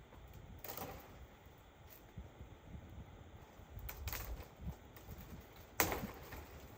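A few scattered sharp cracks and clicks over a low rumble, the sharpest and loudest about six seconds in.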